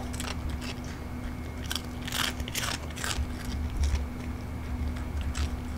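Yorkshire terrier chewing pieces of a homemade dried pollock treat, a series of short crisp crunches with the loudest cluster about two to three seconds in.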